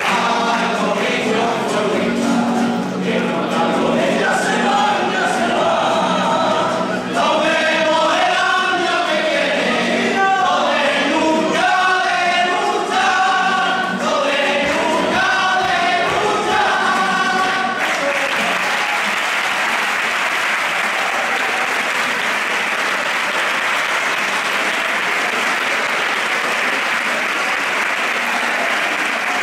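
A carnival comparsa's chorus of voices singing a song to its last held notes, ending a little past halfway through. Then the audience breaks into steady applause that runs on.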